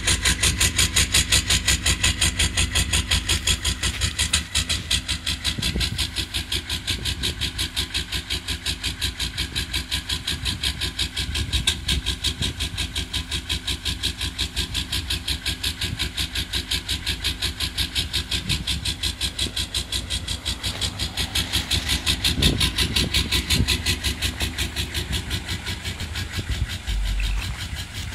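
Old Detroit Diesel V8 idling cold at about −22 °C, its exhaust chuffing in an even, train-like rhythm. It is a cold-start idle with only six of its eight glow plugs working.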